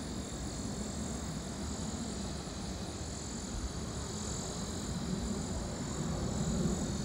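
Distant rumble of a Boeing 737-700 airliner's CFM56 turbofan engines passing overhead on approach, swelling a little towards the end, with a steady high hiss above it.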